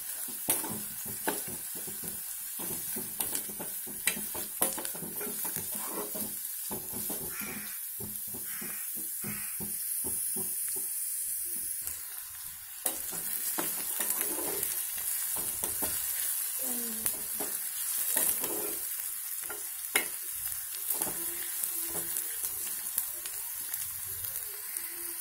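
Chopped onions and green chillies sizzling as they fry in an aluminium kadai, stirred with a spatula that scrapes and knocks against the pan in short sharp clicks over a steady sizzle.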